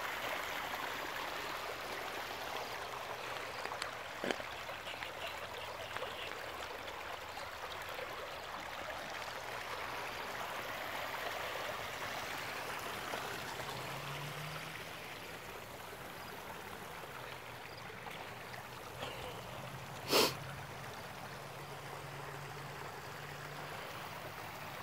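Water from a pond waterfall tumbling over rocks into the pond, a steady rush. A sharp knock stands out about twenty seconds in, with a smaller click around four seconds in.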